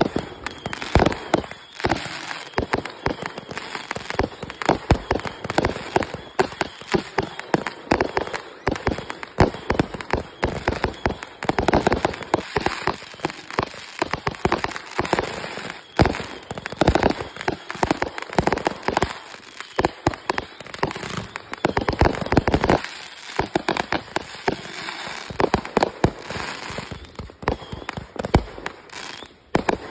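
Consumer aerial fireworks in a finale barrage: launches and shell bursts going off in rapid succession, several bangs a second without a break.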